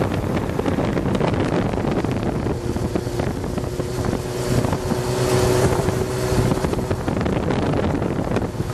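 Wind buffeting the microphone of a car moving at highway speed, over a steady rush of road and engine noise from the traffic, which includes sport motorcycles riding alongside.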